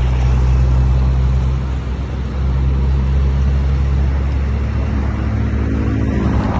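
A motor running steadily with a low, even hum; it dips briefly about two seconds in.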